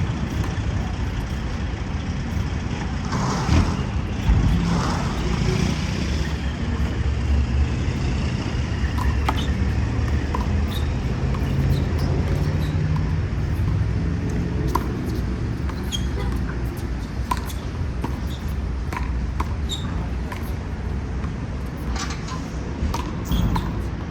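Steady urban traffic rumble with a heavy vehicle going by and a drawn-out high squeal a few seconds in. Over it come scattered sharp smacks of a small rubber handball struck by hand and hitting the wall at irregular intervals.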